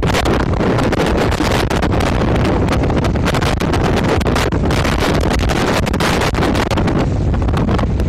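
Strong storm wind buffeting the microphone, a loud continuous rush of noise, with rough surf breaking on the shore rocks mixed in.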